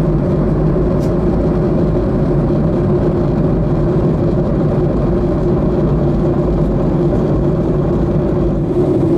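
Steady cabin noise of a Boeing 737-800 during its descent: the even hum of its CFM56 engines over the rush of air past the fuselage.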